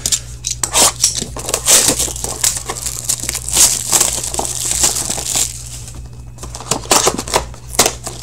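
Plastic shrink-wrap being torn and crumpled off a sealed trading card box: dense crackling crinkles for several seconds, thinning to a few sharper crinkles near the end.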